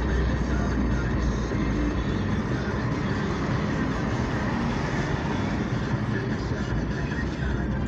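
Car driving along a city road, heard from inside the car: a steady rumble of engine and tyre noise.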